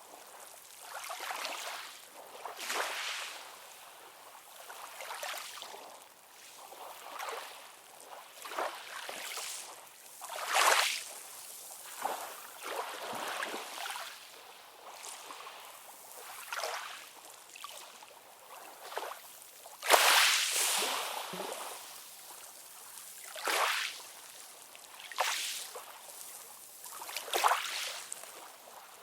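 Sea water lapping and splashing in irregular short surges, one every second or two, the loudest about twenty seconds in.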